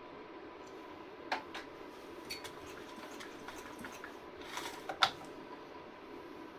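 A few sharp clicks and knocks of small hard objects being handled, one about a second in and the loudest cluster about five seconds in, over a steady faint hum.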